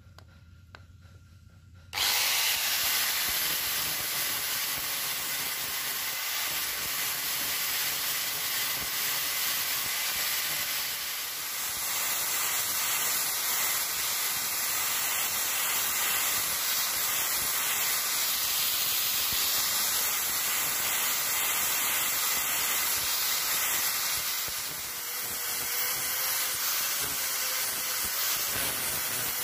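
Handheld angle grinder sanding a wooden knife handle. It cuts in abruptly about two seconds in, runs steadily, and eases briefly twice.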